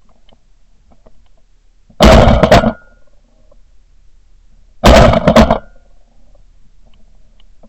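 Shotgun fire: two quick volleys about three seconds apart, each several shots close together, sharp and very loud.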